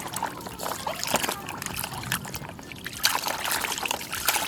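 Water trickling and splashing as a dirty plastic toy is rinsed clean.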